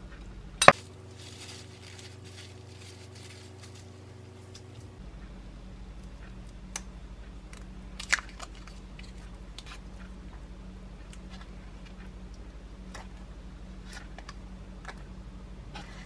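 Kitchen handling sounds: one sharp knock just under a second in, then scattered light clicks and the crinkle of a foil-paper butter wrapper being unwrapped, with a table knife cutting the butter pat.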